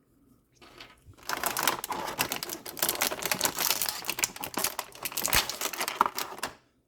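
Rapid crinkling and clicking of toy packaging and small accessories being handled, starting about a second in and stopping shortly before the end.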